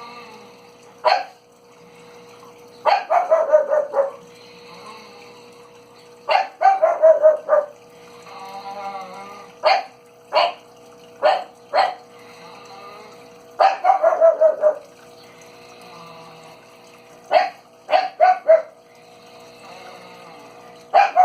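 Unexplained animal-like calls: about five bursts of rapid yelping notes, each about a second long and falling in pitch, with short single yelps in between, over a steady hum.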